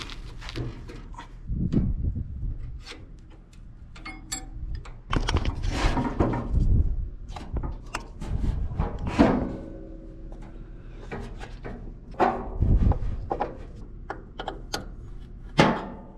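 Irregular clunks, knocks and scrapes of a new battery and its hold-down parts being handled and fitted into an old Ford 8N tractor.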